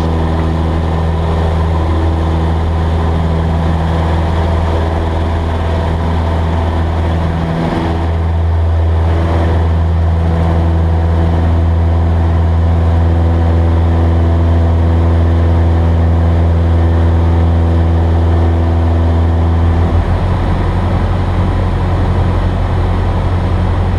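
Cessna 172S's four-cylinder Lycoming IO-360 engine and propeller running at full throttle on takeoff and climb-out, a loud steady drone.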